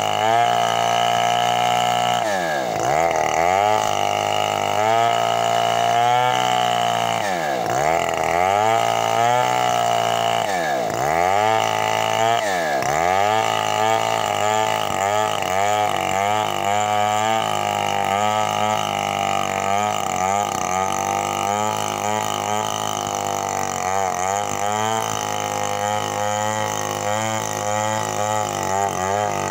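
Stihl MS 070 two-stroke chainsaw running at high revs while cutting wood. Its pitch drops sharply and recovers about four times in the first half as the engine bogs under the cut, then holds steadier.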